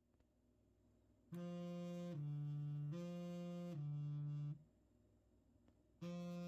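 Smartphone alarm ringtone going off: a low, reedy two-note figure, higher note then lower, played twice starting about a second in, then after a short pause starting over near the end.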